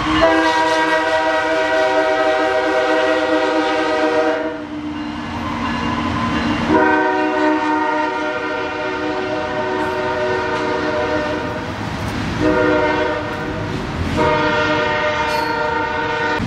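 Diesel locomotive's multi-chime air horn sounding the grade-crossing signal: two long blasts, a short one, then a final long one, over the rumble and clatter of freight cars rolling past.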